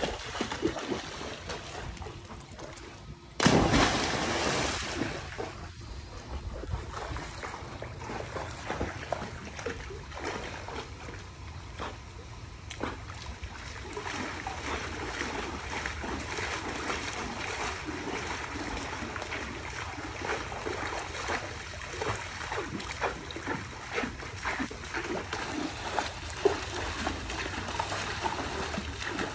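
Dogs splashing in the shallow water of a swimming pool: one loud splash about three and a half seconds in, then steady irregular sloshing and splashing as they wade and play.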